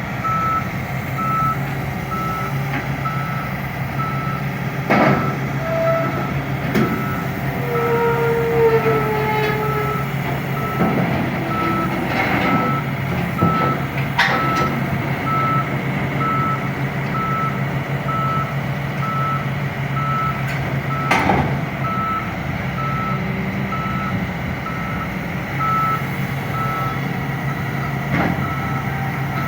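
Wheel-type backhoe loader backing down off a truck: its reversing alarm beeps steadily, about once a second, over the running engine. A few sharp metal clanks are heard, the loudest about a fifth and two-thirds of the way in.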